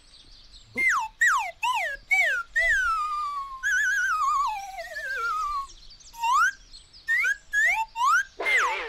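A cat yowling with a knitted cloth held in its mouth: a string of long gliding calls starting about a second in, most falling in pitch, some wavering, the last few rising.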